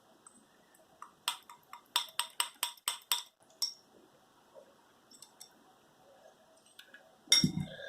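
A quick run of about a dozen light clicks and taps from a plastic slime container being handled, bunched in the first few seconds, then a few faint ticks and a brief low sound near the end.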